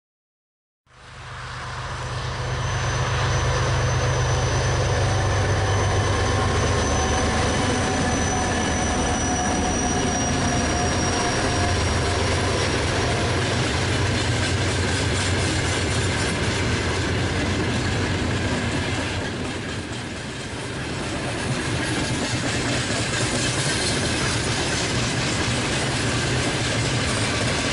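Broad-gauge coal train hauled by two ST40 diesel locomotives passing, starting about a second in: a low diesel drone, strongest over the first several seconds, under the steady rolling of the loaded wagons' wheels on the rails, with a faint high wheel squeal.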